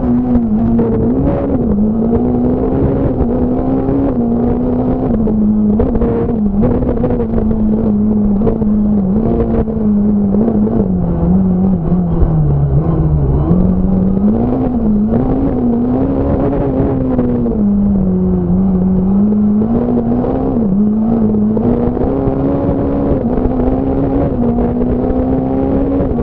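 Fiat Punto S1600 rally car's engine at speed, heard from inside the cabin, its revs rising and falling steadily as the car is driven hard through a stage, with a deep drop in revs about twelve seconds in before it climbs again.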